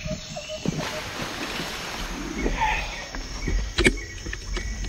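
Scuffing and rustling on a dirt trail as a mountain bike is handled and set back up after a fall, with a sharp knock about four seconds in.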